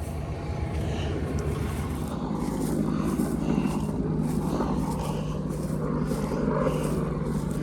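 Farm tractor engine running steadily, a constant low hum.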